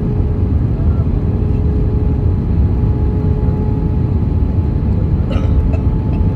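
Steady roar of an airliner's engines and rushing air heard inside the passenger cabin during the descent to land, with a steady tone running beneath it.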